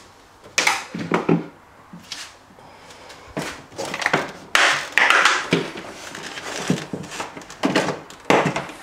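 Plastic interior cover of a Samsung fridge being prised off the back wall: knocks and creaking scrapes of plastic, a longer scrape in the middle, and sharp clicks near the end as the connector plugs behind it are squeezed free.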